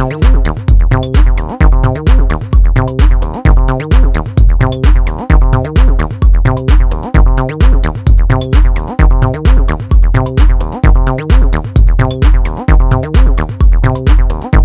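Electronic background music with a steady, heavy drum-machine kick beat, about two beats a second, under sustained synth notes.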